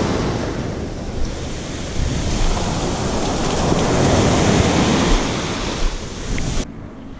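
Ocean surf washing up over the sand in a steady rush, with wind on the microphone. The sound drops away sharply near the end.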